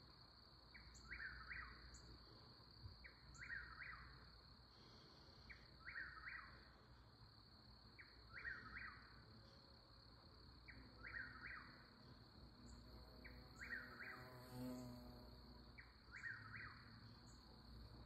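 A whip-poor-will singing its repeated whip-poor-will song, one faint call about every two and a half seconds, over a steady high insect trill.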